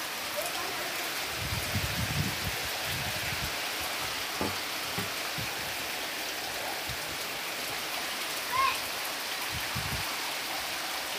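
Heavy rain pouring steadily, with gusts of wind rumbling on the microphone now and then. A short high chirp sounds about eight and a half seconds in.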